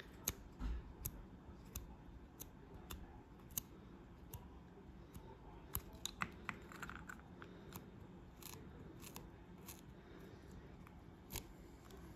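Faint, irregular small clicks and ticks of fingers handling a small plastic model while a ball of blu-tac is dabbed and pulled against it to lift off leftover blu-tac masking.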